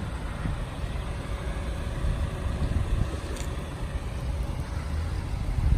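Steady low outdoor rumble of wind on the microphone mixed with distant road traffic.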